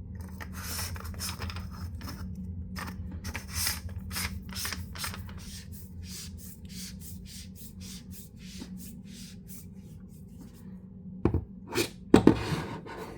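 Hands handling metal flashlights: a long run of quick scraping ticks, then a few louder knocks near the end.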